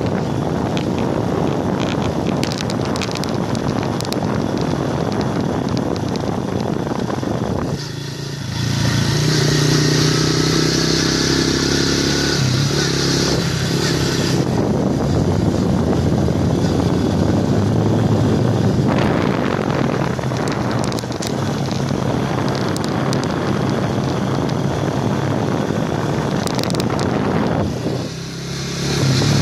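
Kapchai underbone motorcycle's small single-cylinder engine running as it rides along, with wind noise on the microphone. The sound dips briefly about eight seconds in and again near the end, then picks up again.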